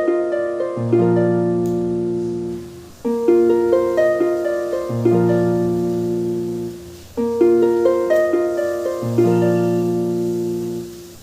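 Background music: a gentle melody of plucked, harp-like notes, each fading after it is struck, in a phrase that repeats about every four seconds.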